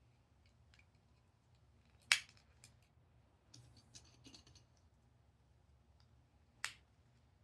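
Small plastic building-block pieces being handled and clicked together: two sharp clicks about two seconds in and near the end, with a run of softer clicks and rustling between them.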